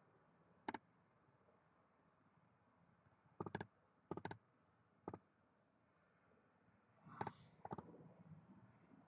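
Six or so sharp clicks of a computer mouse scattered through near silence, some in quick pairs like double-clicks.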